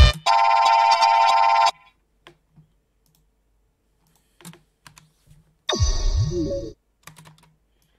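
Short electronic sound-effect samples auditioned one after another: a bright buzzing synth tone that cuts off abruptly under two seconds in, then, near six seconds in, a one-second effect with a low pitch sweep that dips and rises again. Faint computer keyboard and mouse clicks fall in between.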